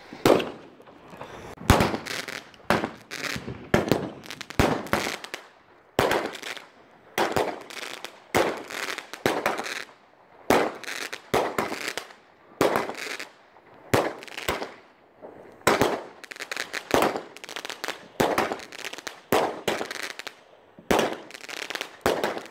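Fireworks going off in a long, unbroken run of loud bangs, about one or two a second, each fading with a short echo.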